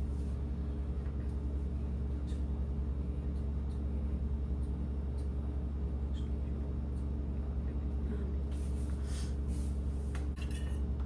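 Steady low hum with a few faint clicks, and light clatter near the end.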